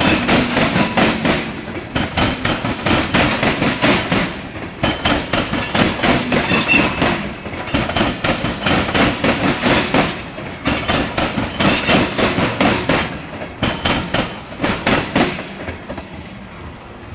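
Norfolk Southern grain train's freight cars rolling past, their wheels clattering over the rail joints in repeated clusters of clicks. The clatter dies away about 16 seconds in as the last cars go by.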